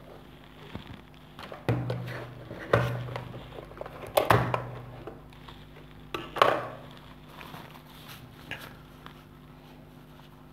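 Several short knocks, scrapes and rustles of hands handling cables and a matchbox on a tabletop, the loudest about four and six and a half seconds in, over a faint steady low hum.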